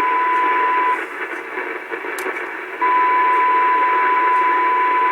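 Ham radio receiver audio on 75 metres in lower sideband: band hiss with a steady whistle-like tone of unknown origin, the repeating on-and-off interference at 3800 kHz that sounds almost like a beacon. The tone cuts off about a second in and returns about two seconds later.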